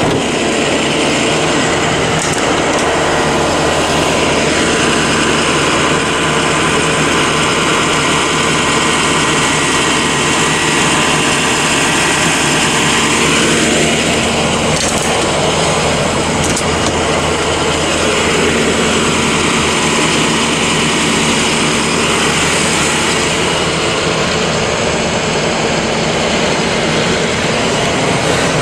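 Truck engine idling steadily and loudly close by. A fainter tone slowly rises and falls a few times over it.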